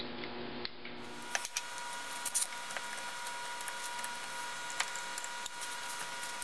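Scattered light clicks and knocks of a metal bar clamp being handled and set across the chair legs, over a faint steady hum.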